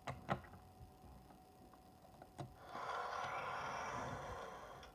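VTech Toot-Toot Drivers Quad Bike toy: a couple of plastic clicks as it is pressed onto the table, another click about two and a half seconds in, then its small speaker plays a buzzing electronic sound effect for about two seconds.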